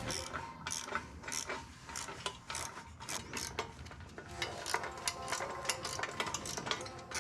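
Hand ratchet clicking in quick, uneven runs as a 13 mm nut is run down onto a bolt, snugged rather than tightened; the clicks come closer together in the second half.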